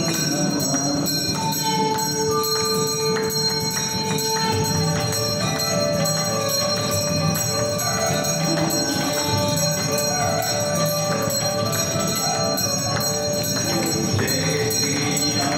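Hindu temple aarti: devotional music with held melodic notes, with bells ringing steadily throughout.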